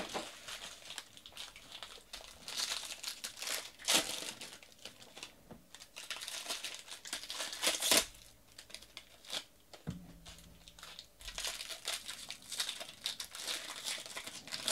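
Foil wrapper of a 2018 Bowman baseball card pack crinkling and being torn open by hand, an irregular crackle with sharp rips, the loudest about four and eight seconds in.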